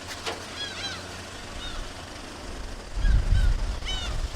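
Gulls calling: a series of short arched cries that come in quick clusters. A low rumble starts about three seconds in.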